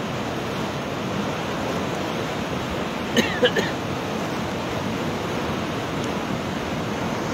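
Swollen, muddy river in full flood rushing past in a steady, continuous roar of churning water, with a few short higher-pitched sounds about three seconds in. The water is still rising, which the person filming puts down to a cloudburst upstream.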